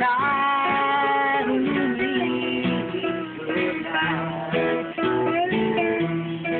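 Guitar music, plucked and strummed, with notes that bend and slide in pitch.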